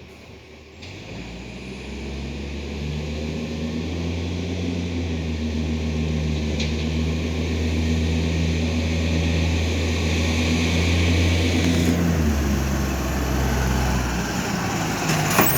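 Iveco ACCO recycling truck's diesel engine running steadily, growing louder over the first few seconds as it comes closer, with a shift in its note about twelve seconds in.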